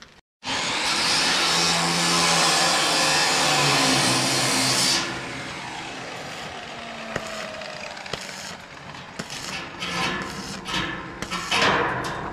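A power cutting tool running loud for about four and a half seconds, then stopping abruptly, followed by scattered knocks of construction work.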